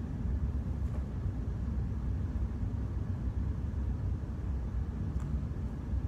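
Steady low rumble of background noise, with a couple of faint light ticks.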